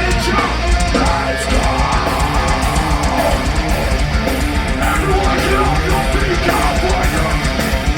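Live heavy metal band playing: distorted electric guitars carry a melodic riff over bass and drums, with regular cymbal hits coming in about two seconds in. The sound is a loud, boomy concert recording.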